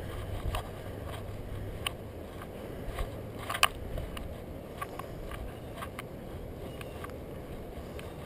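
Footsteps on the wooden plank deck of a suspension footbridge: scattered knocks and scuffs about once a second, the sharpest about three and a half seconds in, over a steady low rumble.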